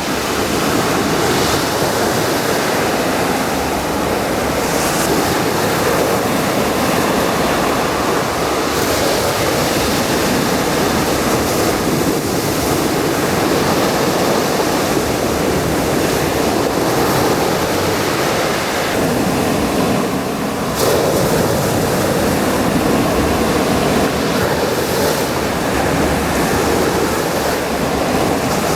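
Black Sea waves washing onto the beach in a continuous rush of surf, with a brief lull about twenty seconds in as one wave ebbs before the next comes in.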